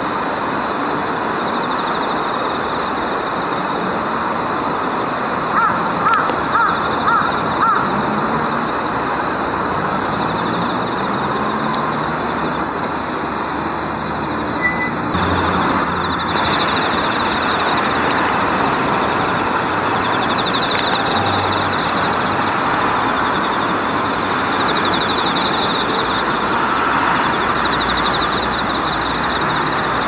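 Jungle crow (Corvus macrorhynchos) calling: a run of about five short caws about six seconds in. Steady traffic noise runs underneath throughout.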